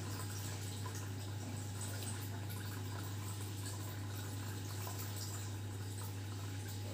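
A steady low hum with an even faint hiss over it, and a few faint tiny ticks.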